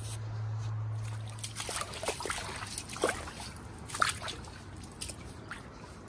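Water trickling and dripping in the shallows among mangrove roots, with scattered small clicks and pops. A low steady hum sounds for about the first second and a half, then fades.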